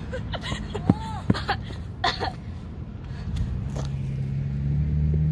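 Brief cries and squeals from children at play, with a couple of sharp knocks about a second in. In the last second and a half a car engine's low, steady hum grows louder.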